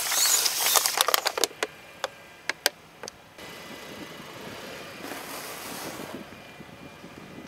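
Plastic drink bottles bursting under a car tyre, liquid spraying out in a loud hiss over a rapid run of pops and crackles, then a few separate sharp plastic clicks. After a sudden drop in level, a softer crunching as stacked round biscuits crumble under the tyre, about five seconds in.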